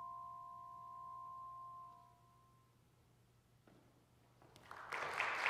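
The last notes of a vibraphone ring on as two pure tones and fade out over about two seconds. After a short near-silence, audience applause breaks out near the end.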